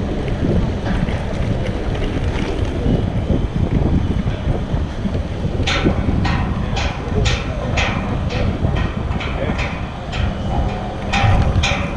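Wind buffeting the handlebar-mounted microphone of an electric wheelchair handbike as it rides along, with a steady low rumble. About halfway through, a regular sharp ticking starts at roughly two clicks a second and fades out, then returns a little faster near the end.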